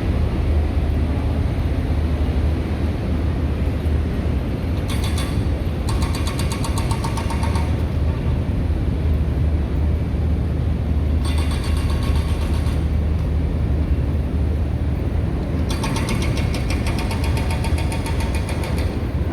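Road construction machinery: a heavy engine running steadily, broken four times by spells of rapid mechanical hammering, each lasting one to three seconds.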